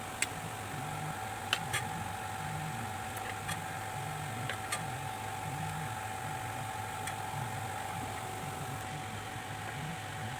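A steady mechanical hum with a constant mid-pitched whine, broken by a few light clicks.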